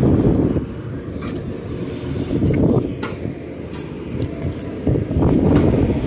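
Low rumble of a vehicle engine running, rising and falling in level, with a few faint knocks.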